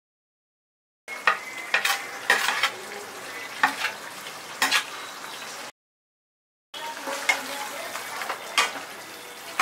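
Steel ladle scraping fried potato slices off a plate into a kadai of simmering masala, then stirring them in, with sharp clinks of the ladle against the plate and pan over a steady sizzle. The sound is absent for the first second and cuts out again for about a second midway.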